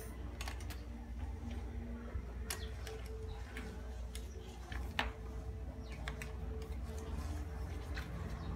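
Scattered small clicks and ticks, the sharpest about five seconds in, over a low steady hum.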